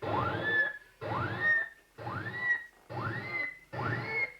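A sampling synthesizer playing back a short sampled whistle on one key after another up the keyboard. There are five notes, about one a second, each a quick glide from low to high, and each pitched a little higher than the last.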